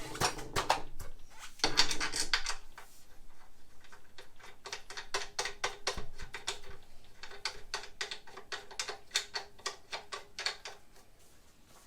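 Parts of a metal mitre saw stand being handled and fitted: a few loud knocks, then a quick run of sharp clicks, about four or five a second, that fades out near the end.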